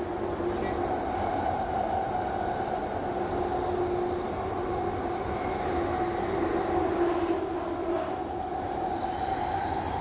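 London Underground tube train heard from inside the carriage, running with a steady rumble of wheels and a held two-note hum from the train's machinery.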